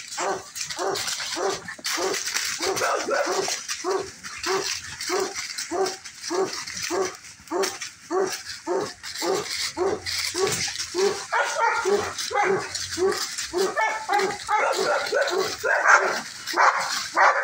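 Dogs play-barking: one dog barks over and over at a steady pace, about two barks a second. From about eleven seconds in the barking becomes higher and more jumbled.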